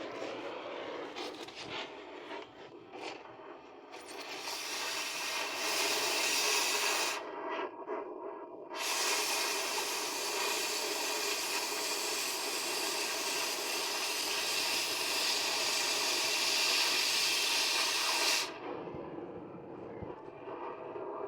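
A shop power tool running in two spells, a short one and then a long one of about ten seconds, each making a steady hiss over a faint motor whine and stopping abruptly.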